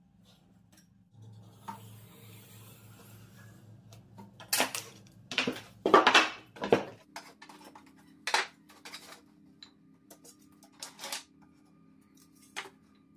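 Plywood strips being handled and set down on a workbench: a quick run of loud wooden clatters and knocks about halfway through, then a few lighter single knocks as the pieces are laid out.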